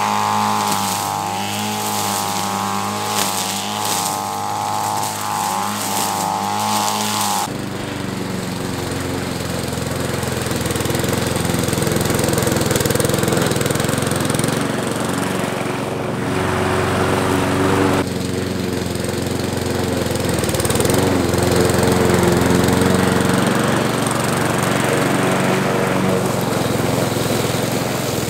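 Petrol walk-behind lawn mower engine running as it cuts long, overgrown grass. For the first seven seconds or so the engine note wavers up and down; after a sudden change it runs steadily, with some variation as it works through the grass.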